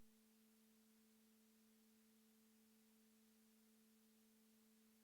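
Near silence, with a faint steady tone made of two pitches, one an octave above the other.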